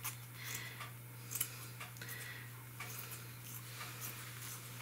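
Scissors snipping through hammock bug netting: irregular short sharp clicks, a couple every second, over a steady low hum.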